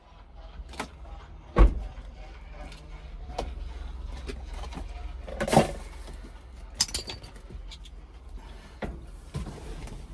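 Scattered metallic clinks and knocks of hand tools and parts being handled at a truck's steering column, with three louder knocks, over a steady low hum.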